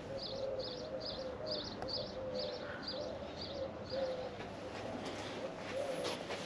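Doves cooing over and over, while a small bird chirps in a quick run of about three chirps a second for the first few seconds.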